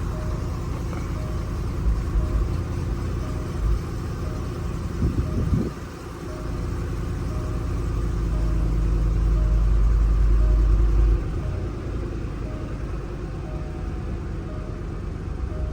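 Range Rover Supercharged's supercharged V8 idling steadily; the engine has a slight misfire. The low rumble grows somewhat louder for a few seconds midway, and a faint short beep repeats evenly throughout.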